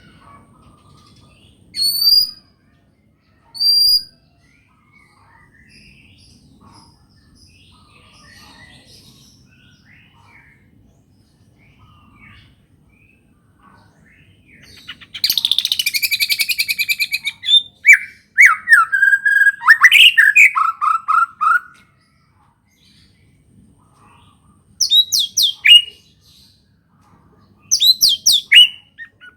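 White-rumped shama (murai batu) singing a song filled with canary-like phrases. Two short high whistles near the start and faint chirps give way about halfway to a loud, fast trill, then a run of varied sliding whistled phrases, with more bursts near the end.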